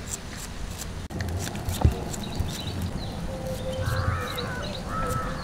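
Birds calling and chirping, with dull low thuds throughout and a single sharp knock about two seconds in.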